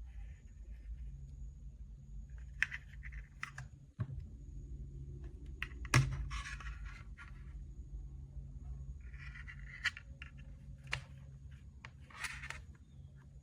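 Handling noises: several sharp clicks and short scraping rustles, the loudest click about six seconds in, over a low steady hum.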